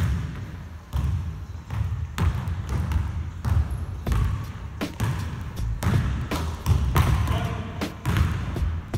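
Basketball bouncing on a hardwood gym floor: a string of irregular thuds.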